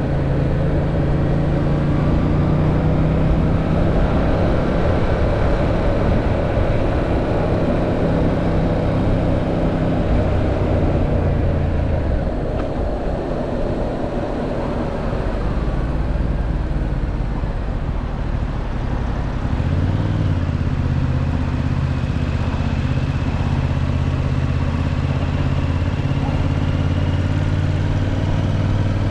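Yamaha MT-07's parallel-twin engine under way: steady running, easing off from about twelve seconds in, then pulling again from about twenty seconds in.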